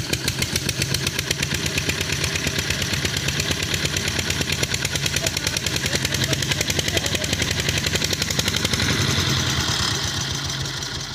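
Petter single-cylinder diesel engine running with a steady, rapid chugging beat while it drives a belt-driven water pump. The beat weakens and fades over the last second or so.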